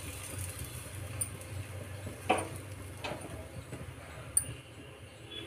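Thick chickpea-flour batter being dropped by hand into the oiled cups of an appe pan: a few soft plops and clicks, the loudest about two seconds in and a sharp click near the end, over a low steady hum.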